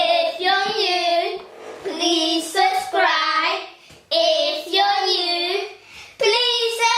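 Children singing in high voices, in drawn-out phrases of about a second each with short breaks between them.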